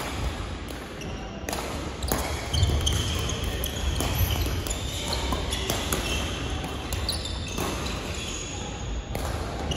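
Badminton rally: sharp racket strikes on the shuttlecock and sport shoes squeaking on the court floor, over the general din of the hall, with a low rumble that grows about two and a half seconds in.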